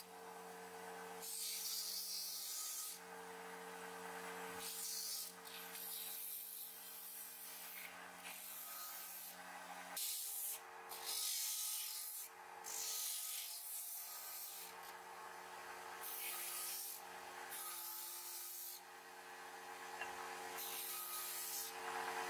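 Benchtop disc sander running with a steady motor hum while wooden handle scales on a cleaver's tang are pressed against the spinning abrasive disc to shape them. The rasping sanding noise comes and goes in repeated passes.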